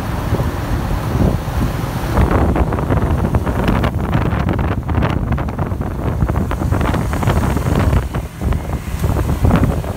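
Loud wind buffeting the microphone from riding pillion on a moving motorbike taxi. The rumble rises and falls unevenly, with road and scooter traffic noise mixed in underneath.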